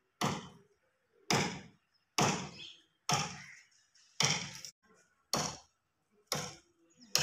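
Axe blows chopping into a tree trunk: eight sharp strikes, about one a second, each fading quickly.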